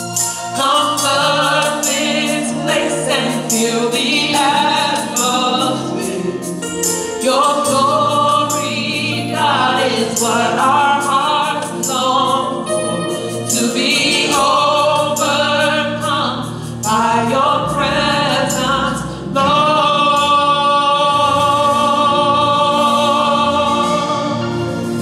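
Gospel song sung by a church worship team with accompaniment, in phrases with vibrato, ending on a long held note in the last few seconds.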